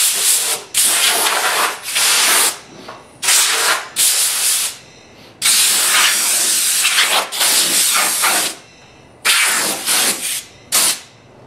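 Air-compressor blow gun hissing in about nine blasts of compressed air, some short and some a second or two long, with short pauses between.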